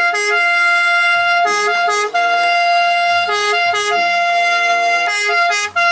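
Italian ambulance's two-tone siren sounding, a long higher note broken every second or two by short lower notes.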